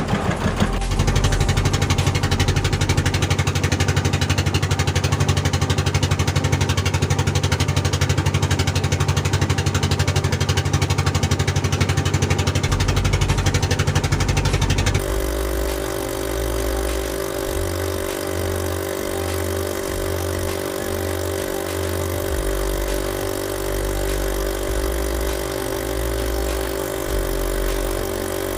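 Fishing boat's engine running steadily under way, with a fast, even throb. About halfway through the sound changes abruptly to a slightly quieter, smoother drone.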